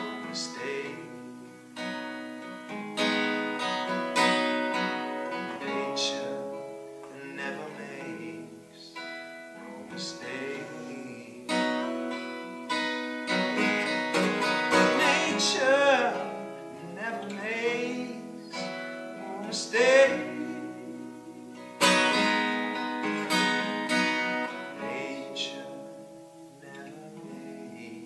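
Steel-string acoustic guitar picked in an instrumental passage, single notes and chords ringing. Around the middle, a few long wavering notes are sung without words over it.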